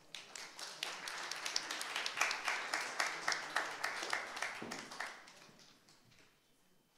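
Audience applauding, a dense patter of hand claps that dies away about five seconds in.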